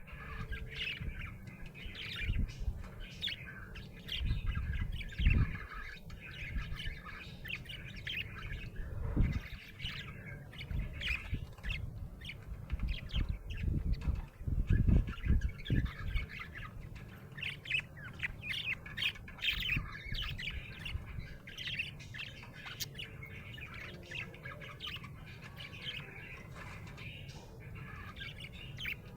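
Budgerigar (budgie) chattering with many quick, high chirps and squawks one after another, the chatter of a happy budgie. A few dull low thumps sound now and then in the first half.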